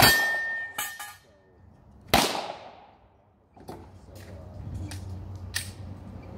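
Glock 22 .40 S&W pistol being fired: a loud shot right at the start and another about two seconds in, each trailing off in an echo, with several fainter, sharper cracks in between and later.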